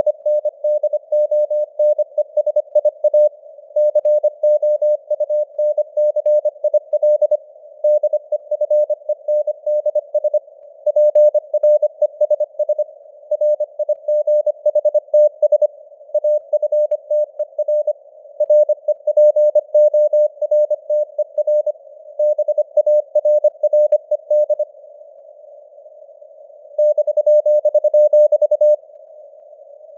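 Morse code (CW) at 25 words per minute: a single mid-pitched tone keyed on and off in dots and dashes, in word groups separated by short pauses and a longer pause near the end. Behind it runs a narrow band of simulated receiver hiss, as when a CW signal is heard through a radio's filter.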